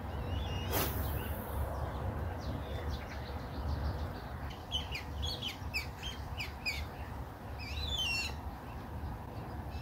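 A small songbird chirping: a quick run of short notes about five seconds in, then a warbling phrase about eight seconds in. A steady low rumble runs underneath, and there is a brief hiss about a second in.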